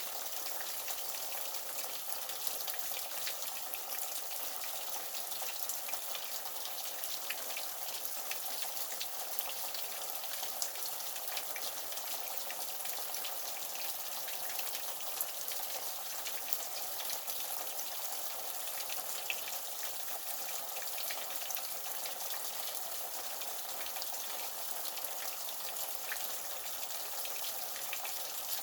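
Steady splashing water that sounds like rain: an even hiss with many small drip-like ticks scattered through it.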